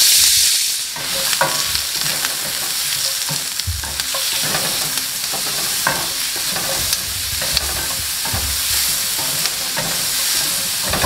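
Diced onions frying in oil in a stainless-steel skillet. A loud sizzle settles about a second in into a steady sizzle, broken by the short scrapes of a spatula stirring against the pan.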